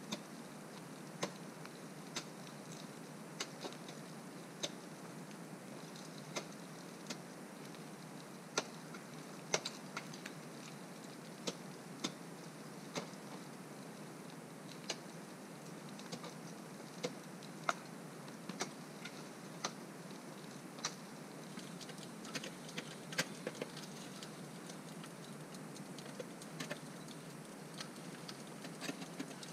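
Faint, sharp, irregular clicks, roughly one every second, over a steady low hiss.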